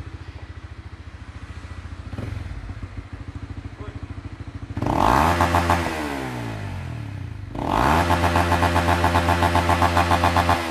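Honda RS150 single-cylinder four-stroke engine with an aftermarket exhaust, idling and then revved twice at full throttle. The first rev starts about five seconds in and falls back. The second, about eight seconds in, is held at high revs with a rapid pulsing to the end.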